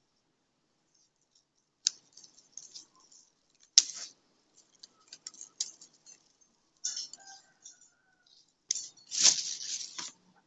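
Thai basil stems and leaves rustling and crackling as they are picked up and gathered into bunches by hand. The sound comes in short, scattered bursts with sharp snaps, and the loudest, longest rustle is near the end.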